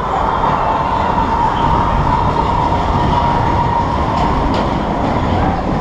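Steel roller coaster train running along its track in the dark: a loud, steady rumble of wheels with a faint whine that sinks a little in pitch near the end.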